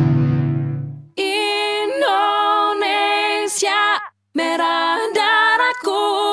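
A ringing instrumental chord fades out, then voices sing a patriotic-style song without accompaniment, in held notes with a short break for breath midway.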